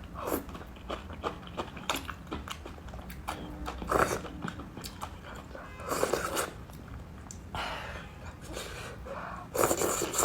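Close-up eating sounds of a person eating crossing-the-bridge rice noodles: bursts of biting and chewing every second or two, the loudest about four seconds in and near the end.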